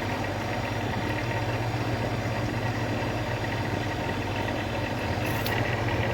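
Commercial refrigeration compressor running steadily with a low hum, the unit cooling again now that a replaced contactor lets the compressor start. A couple of faint ticks near the end.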